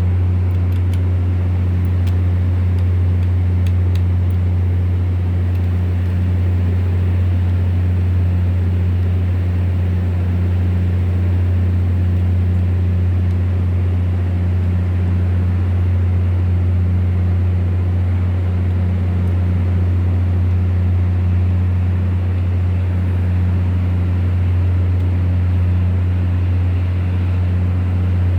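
Volvo Penta TWD1643GE six-cylinder turbo-diesel generator engine running loudly and steadily at constant speed, with a deep even hum. The engine has a misfire.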